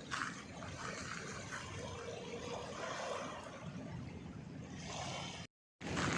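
Bay water lapping and sloshing under steady outdoor noise. The sound cuts out completely for a moment near the end.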